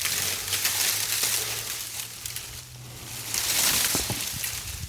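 Dry brush, limbs and vines rustling and crackling as a tangle is dragged and pulled loose by hand, with two louder surges, one at the start and one about three seconds in.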